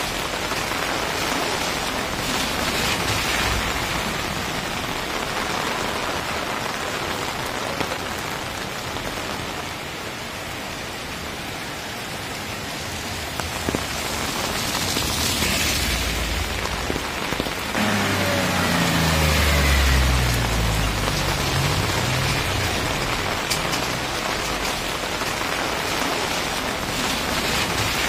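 Steady light rain falling on a wet paved street. About two-thirds of the way through, a vehicle passes on the wet road: a swell of tyre hiss, then its engine note, which is the loudest moment.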